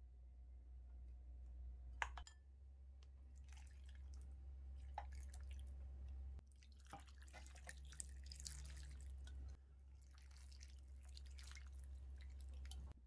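Water poured from a bowl into a frying pan of radish chunks and seasoning paste, splashing and trickling in two long pours. A single sharp click comes about two seconds in.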